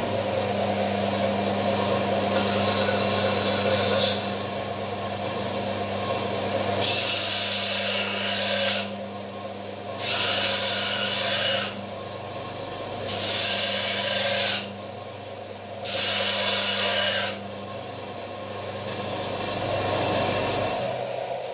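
Bench belt grinder's electric motor starting and running with a steady hum while steel is pressed to the belt. There is a rasping grind in the first few seconds, then four separate passes of about one and a half seconds each, and the machine winds down near the end.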